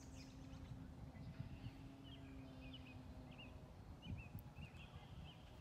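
Faint short bird chirps over a quiet outdoor background, with a low steady hum that stops about three seconds in.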